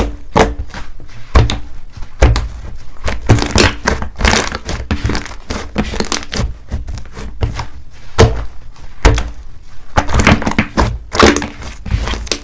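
Hands squeezing and kneading a large mass of thick, fluffy white slime: air pockets squish and pop in a dense, irregular run of sharp crackles and dull thuds.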